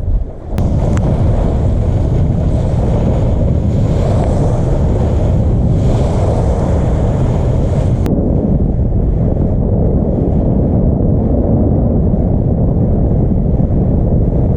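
Wind buffeting the microphone over the rush of water past the hull of a Volvo 65 ocean racing yacht under sail. The low rumble is steady; a higher hiss drops away about eight seconds in.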